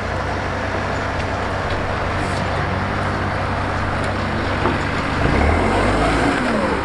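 A vehicle engine running steadily, with a slight swell in the low rumble and some shifting pitch about five seconds in.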